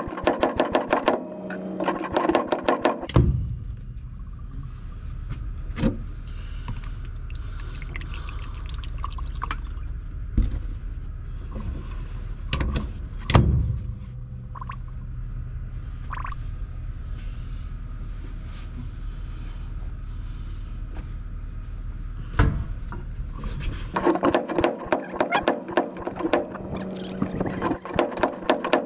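Brake fluid gurgling down through a funnel into a truck's master cylinder while the brakes are pumped and bled, over a steady low hum. Rapid clicking and rattling comes in a burst at the start and again near the end, with a few single knocks in between.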